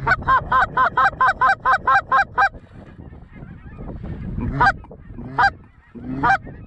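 Goose honks: a fast, even run of about ten clipped honks, roughly four a second. After a short pause come three slower single honks near the end.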